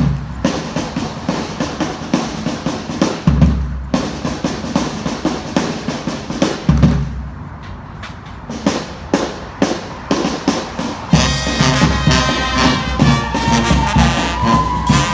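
Street band music: drums playing a steady beat with heavy bass-drum hits, then brass horns come in about eleven seconds in and play on with the drums.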